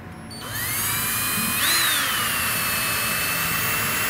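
Ridgid cordless drill driving a wood screw through a hold-down board. The motor whine starts about a third of a second in and rises as it spins up, briefly jumps higher near the middle, then runs steady.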